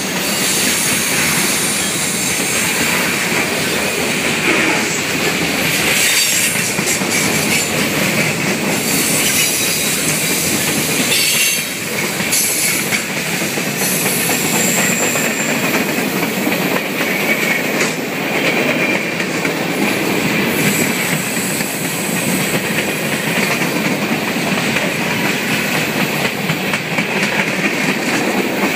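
Freight cars rolling past at close range: steel wheels clattering and rumbling on the rails, with a few brief high-pitched wheel squeals.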